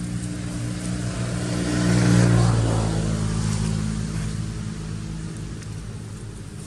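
A motor vehicle's engine passing by, growing louder to a peak about two seconds in, then dropping in pitch and fading away.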